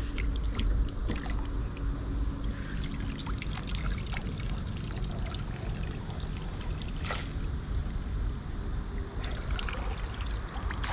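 Water trickling and pouring off a cast net as it is hauled up out of the water and gathered in by hand, with many small splashes and drips, over a steady low rumble.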